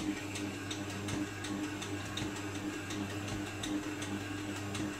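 Electric mixer running and kneading dough: a steady motor hum with a regular mechanical ticking, about three ticks a second.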